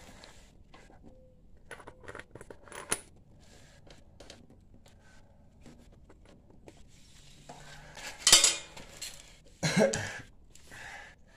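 Small metal clinks and clanks as a go-kart wheel with an aluminium rim is handled onto its hub and its bolts are fitted, with two louder clanks about eight and ten seconds in.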